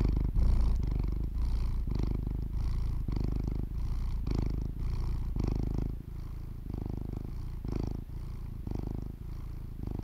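A domestic cat purring close to the microphone: a low rumble that swells and eases about twice a second with each breath in and out. It drops somewhat in level about six seconds in.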